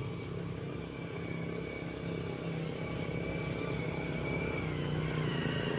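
A motor vehicle's engine running steadily: a low, even hum whose pitch shifts slightly near the end, with a steady high-pitched whine above it.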